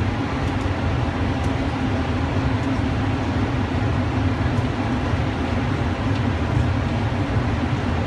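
Running noise inside a cable-drawn Doppelmayr Cable Liner people-mover car moving along its guideway: a steady low rumble with a faint steady hum.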